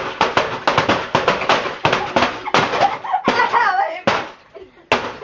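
Rapid, repeated blows of a hammer and axe on a plastic computer keyboard, several strikes a second for about three seconds, then two more single blows near the end. A girl's voice cries out in the middle.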